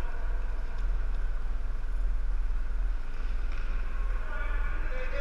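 Steady low rumble of the gymnasium's background noise, with distant, echoing voices of floor hockey players, a little stronger in the second half.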